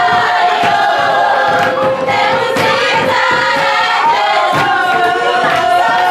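A group of young voices singing together in a sustained, wavering tune, with handclaps.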